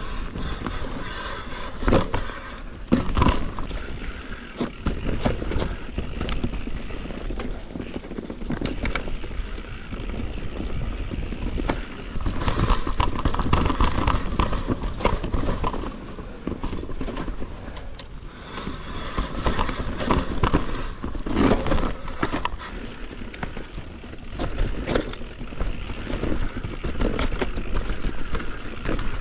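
Mountain bike ridden down a steep, rooty enduro trail: tyres rolling over dirt and roots, with repeated sharp knocks and rattles as the bike hits roots and bumps.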